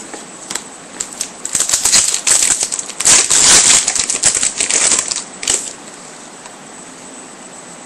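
Trading-card pack's foil wrapper crinkling and rustling, with cards being handled, as the next pack is opened. The crinkling is busiest from about a second in and dies away after about five seconds.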